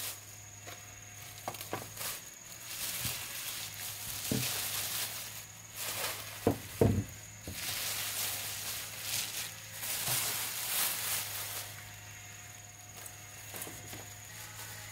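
Thin plastic bags rustling and crinkling as groceries are unpacked, in repeated bursts, with a couple of sharp knocks of items being set down on a wooden table about halfway through.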